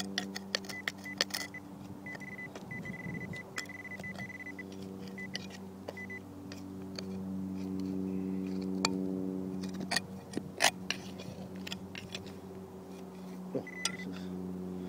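Metal-detecting hand digger cutting into rocky soil, its blade giving sharp clicks and knocks as it strikes stones, the loudest about ten seconds in. A steady low hum runs underneath, and a high-pitched beep tone comes and goes in the first six seconds and again near the end.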